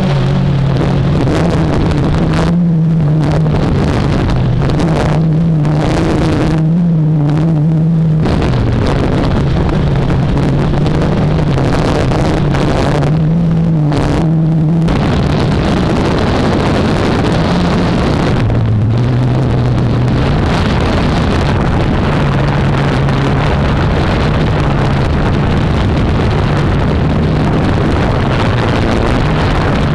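Blade 350QX quadcopter's electric motors and propellers running in flight, a steady hum that shifts up and down in pitch as the motor speeds change, with heavy wind noise on the microphone that eases off now and then.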